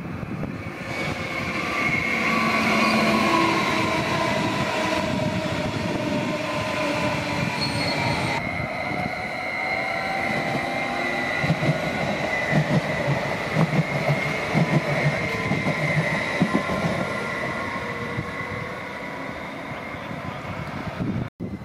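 Stadler FLIRT electric multiple unit rolling past along the platform, with high squealing tones from its wheels on the rails. A run of clattering over rail joints comes in the middle, and the sound eases off near the end as the train moves away.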